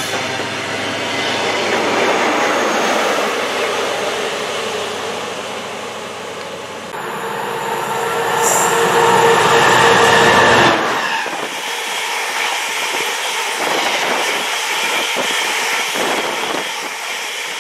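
Trains passing at speed through a station: first a CrossCountry diesel passenger train rushing by, then a freight train of empty-looking grey box wagons rumbling past with an irregular clatter of wheels over the rail joints. The sound jumps abruptly twice.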